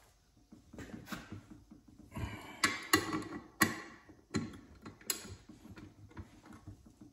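Irregular metallic clicks and knocks of a socket and wrench working the ring gear bolts on an Arctic Cat Team clutch as they are snugged down.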